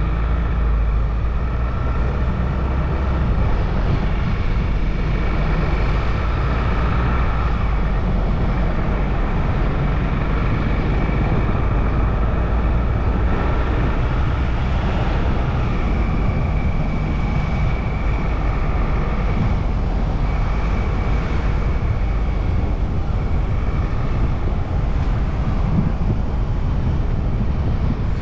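A car driving along a road: steady engine and road noise, heaviest in the low rumble, with no sudden events.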